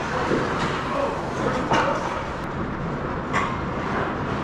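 Sound of a hockey game in play: a steady rumble of play with a few sharp clacks, the clearest just under two seconds in and again about three and a half seconds in, and faint voices in the background.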